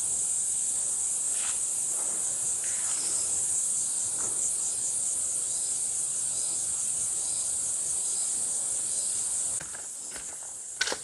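Steady, high-pitched chorus of insects buzzing with a faint pulse. It drops suddenly quieter near the end, where a couple of short ticks sound.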